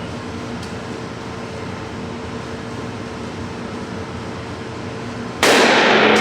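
Steady hum of the range's ventilation or air handling. About five seconds in, a single very loud gunshot rings out and echoes on.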